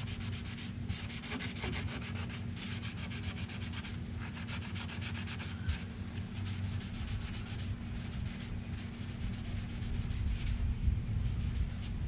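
Polishing compound being scrubbed over an automotive painted steel fender, a fast, even rubbing to cut off transferred paint and scratch marks, over a steady low hum.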